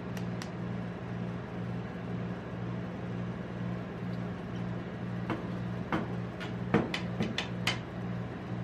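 Glass soda bottle handled over a stainless-steel ice-roll cold plate: scattered light clicks and clinks, then a quick run of taps with the loudest knock about seven seconds in as the bottle is stood on the steel plate. A steady low hum of the cold-plate machine's refrigeration runs underneath.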